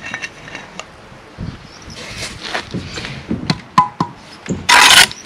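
Bricklaying work: scattered knocks and taps of tools and bricks, a short ringing tap, then a loud scrape near the end.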